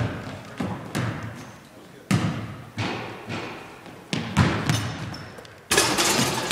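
Basketball bouncing on a hardwood gym floor, each bounce a sharp slap with a long echo in the hall, at irregular intervals of about half a second to a second; a louder, longer crash comes about six seconds in as the player goes up to the rim.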